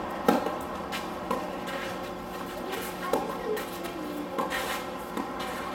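Tennis serve and rally: a sharp pop of racket on ball about a quarter second in, the loudest, then four more sharp pops of racket hits and ball bounces spaced one to two seconds apart.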